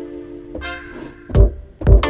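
Instrumental beat being played back from music production software: a sustained pitched chord with a higher note coming in about half a second in, and two deep drum hits close together near the end.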